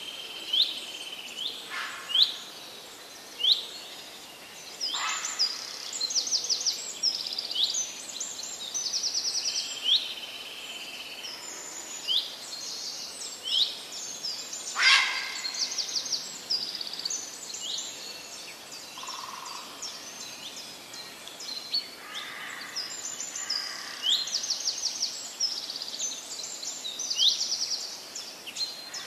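Several small birds chirping, with quick sweeping calls and fast trills overlapping one another, and a few sharp clicks, the loudest about halfway through.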